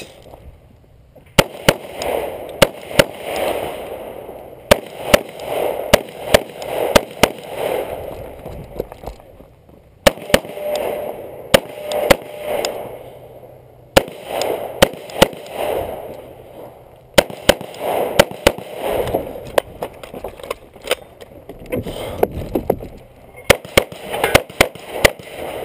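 Semi-automatic rifle firing a timed course of fire: many loud, sharp shots at uneven spacing, several in quick pairs, with short pauses between strings.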